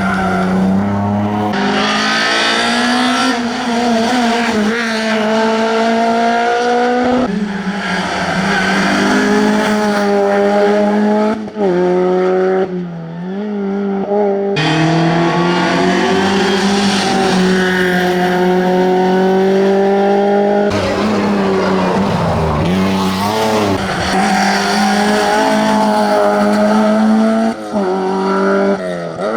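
Classic rally car engine driven hard, its note climbing, holding and falling several times as the driver shifts gears and lifts for corners.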